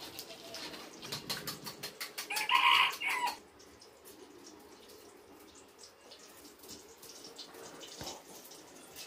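A chicken calls once, short and loud, about two and a half seconds in, over light clicking and crackling that thins out after it.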